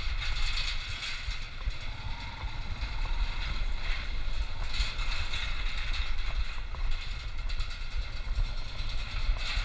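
Yamaha motorcycle riding slowly across a steel-decked suspension bridge: a steady low engine rumble under a constant clatter of the tyres and the metal deck.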